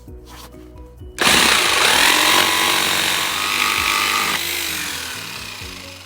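Electric woodworking power tool switched on about a second in and running loud for about three seconds, then switched off and winding down with a falling pitch as it fades.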